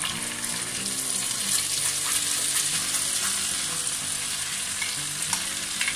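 Cashew, onion and green chilli paste sizzling in hot butter and oil in a pan, with a few clicks of stirring near the end.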